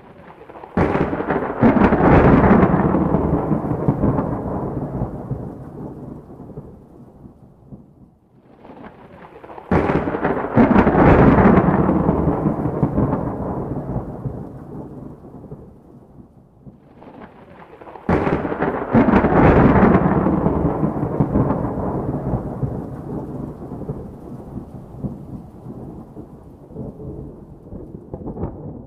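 Three thunderclaps about eight to nine seconds apart, each a sudden crack followed by a long rolling rumble that slowly fades away.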